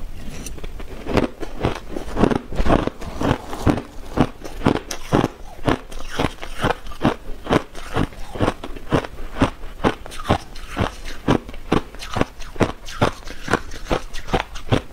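Crushed ice being chewed, a rapid, even run of loud crunches at about two to three a second.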